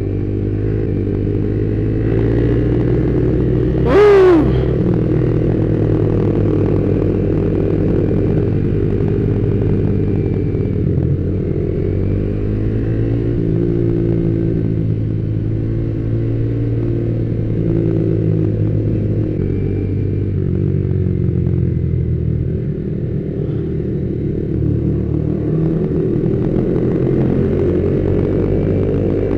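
Yamaha Vixion R's single-cylinder engine running as the motorcycle rides along at a moderate pace, its pitch rising and falling gently with the throttle. A brief, loud tone falling in pitch sounds about four seconds in.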